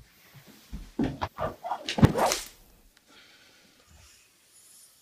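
A thin stick used as a whip swishing and smacking several times in quick succession, the loudest strike about two seconds in.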